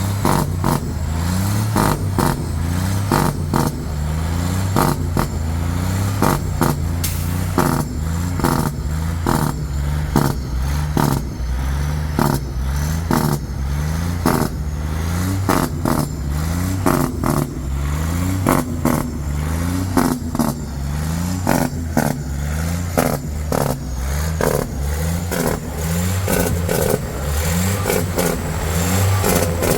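Cummins Big Cam 400 inline-six turbo diesel in a bus, running under load. The engine note climbs and drops again and again, with frequent rattles and knocks from the bus body.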